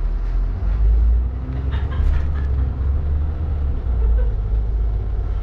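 Low, steady rumble of a double-decker bus heard from inside, engine and road noise as it drives slowly in traffic.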